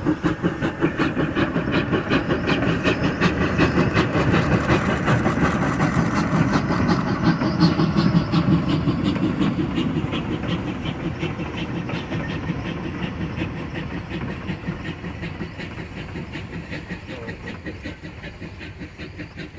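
Narrow gauge steam locomotive chuffing in a fast, steady rhythm as it passes with its passenger coaches. The sound is loudest in the first half and then fades as the coaches roll by.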